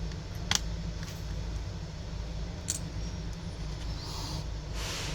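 Small hard clicks and taps as parts are handled while a smartphone is taken apart: two sharp clicks, then brief scraping near the end, over a steady low hum.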